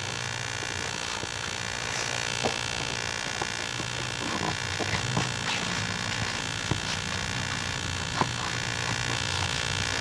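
Steady electrical hum on the recording, with a few faint ticks and rubbing as a bicycle inner tube is worked by hand into the tyre.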